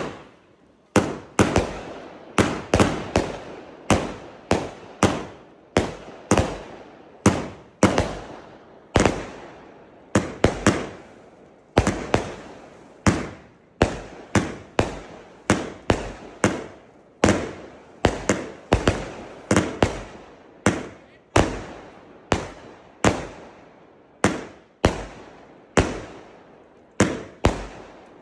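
Lesli Crowd Control compound firework battery firing shot after shot in a fairly quick sequence: a steady run of sharp bangs, about one and a half a second, each trailing off quickly.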